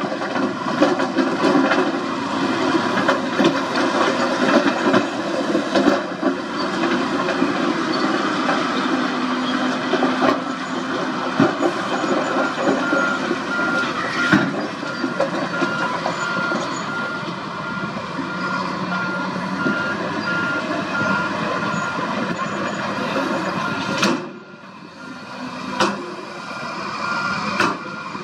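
Diesel engines of dump trucks and a wheel loader running under load, with a reversing alarm beeping steadily from about midway. The machinery noise drops away briefly near the end.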